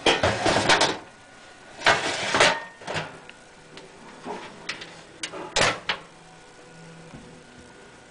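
Vintage Philco refrigerator's moist cold storage compartment being handled: a few short scrapes, clunks and clicks in the first six seconds, then only a faint steady hum.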